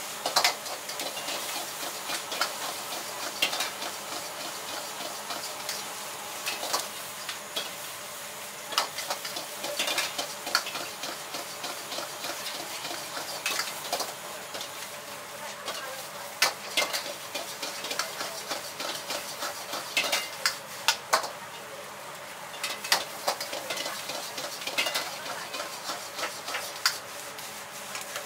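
A metal ladle scrapes and clanks irregularly against a wok as egg fried rice is stir-fried and tossed over a high gas flame, under a steady frying sizzle.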